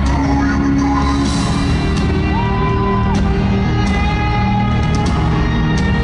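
Live band music played loud through an arena sound system, with drums and sustained synth-like tones. A short tone slides up, holds and slides back down about halfway through.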